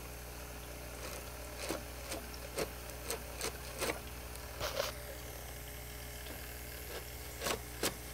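Battery-operated gravel siphon's small motor running with a steady hum, while pebbles click and knock against its plastic nozzle in irregular bunches as it works through aquarium gravel, clustered in the middle and again near the end.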